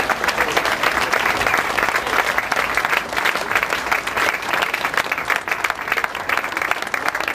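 Crowd applauding: many hands clapping at once in a dense, steady patter.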